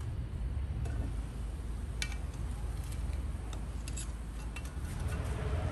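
Metal tongs clicking against hot charcoal briquettes and a cast-iron Dutch oven lid as the coals are lifted off and the lid is taken off: a few sharp clinks spread over the second half, over a low steady rumble.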